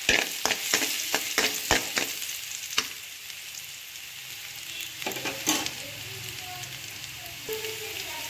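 Crushed garlic cloves sizzling in hot oil in a metal kadai, with a slotted metal spatula knocking and scraping against the pan about eight times in the first three seconds and a few more times about five seconds in.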